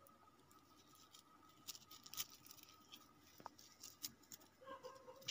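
Faint, scattered clicks and light scrapes of a utensil stirring macaroni in a small cooking pot, with a faint steady tone underneath.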